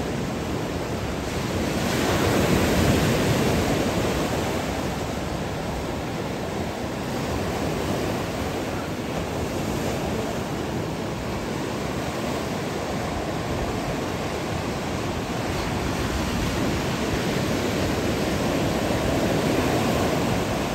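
Ocean surf washing and breaking on a beach, a steady roar of waves that swells louder about two seconds in and again near the end.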